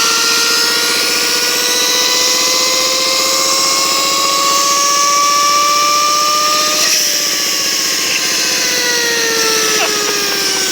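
Worn vehicle bearing humming loudly under way, a high droning whine likened to a Yamaha R1 engine. Its pitch climbs slowly with speed for about seven seconds, then falls steadily as the vehicle slows.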